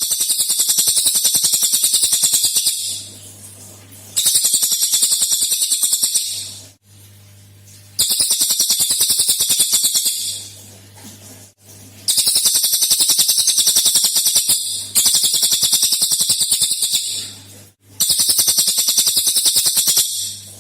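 Cililin bird singing its 'tembakan' song: six bursts of a very fast, high-pitched rattling trill, each two to three seconds long, with pauses of about a second between them. A faint low hum runs underneath.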